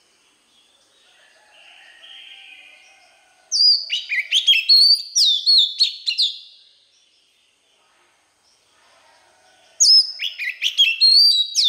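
Oriental magpie-robin singing: soft, quiet warbling first, then two loud phrases of clear whistled notes with quick slides in pitch, one starting about three and a half seconds in and another near the end.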